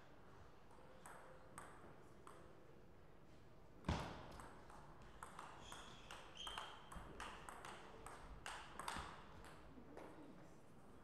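Table tennis ball and paddles: a few light clicks, then a loud thud about four seconds in, then a fast rally of sharp clicks from paddle hits and table bounces lasting about five seconds.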